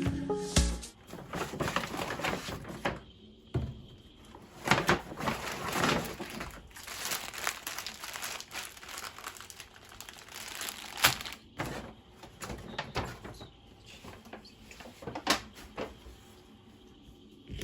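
Irregular rustling and crinkling, as of things being handled, with scattered sharp clicks and knocks.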